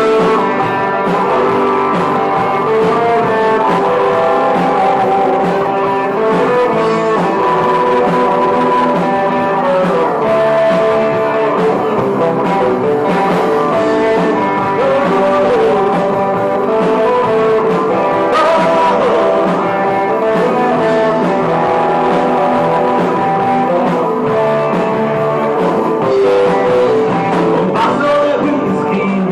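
Recorded band music led by guitar, with singing.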